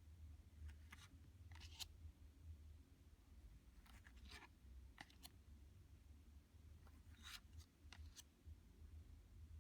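Tarot cards being handled and slid against one another as the deck is flipped through: faint, brief papery swishes and flicks, some in quick pairs, over a low steady hum.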